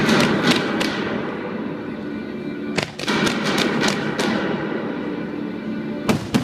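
Fireworks display barrage: clusters of rapid sharp cracks and bangs over a continuous crackling rush, with a burst at the start, another about three seconds in, and two sharp bangs near the end. Music plays underneath.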